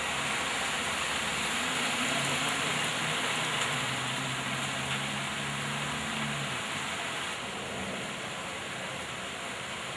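Heavy rain pouring steadily onto a flooded street, a continuous hiss, with a low hum underneath from about two to six and a half seconds; the rain is a little quieter after about seven seconds.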